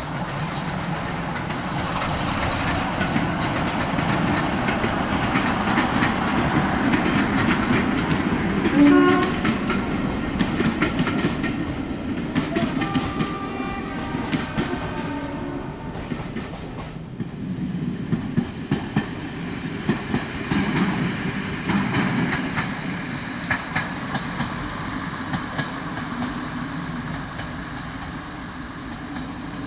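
British Rail Class 33 'Crompton' diesel locomotive passing with a train of coaches: its Sulzer eight-cylinder engine working under load over clickety-clack wheel noise, with a short horn note about nine seconds in. After a lull, a Derby Lightweight single-car diesel railcar approaches, its engine running over rail clatter.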